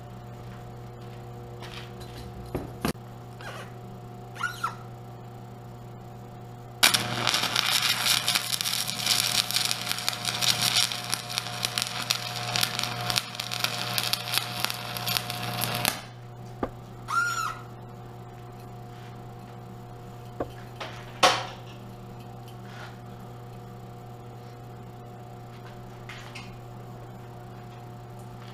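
Shielded metal arc (stick) welding of aluminum with a 1/8-inch Hobart 4043 electrode at 90 amps DCEP: the arc crackles loudly for about nine seconds, starting about seven seconds in and breaking off abruptly. A steady hum lies underneath, with a few light clicks after the weld and one sharp knock about 21 seconds in.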